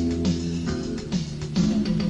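Music: an instrumental passage of strummed guitar chords over a bass line, the chords changing about every half second.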